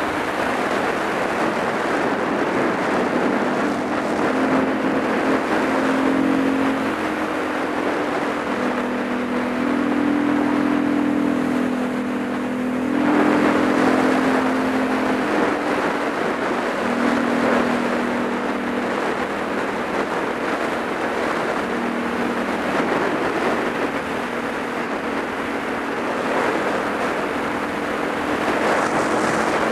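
Supermoto motorcycle engine running on the move, its pitch stepping up and down with the throttle, under heavy wind noise on the microphone. It gets louder about thirteen seconds in.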